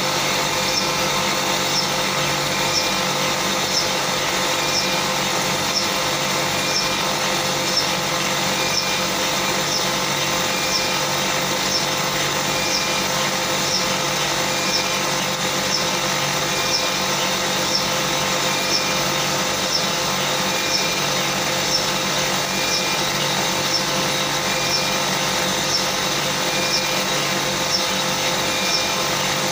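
Sumitomo F-70 helium compressor running steadily in normal operation, a constant mechanical hum with a light high tick repeating about once a second.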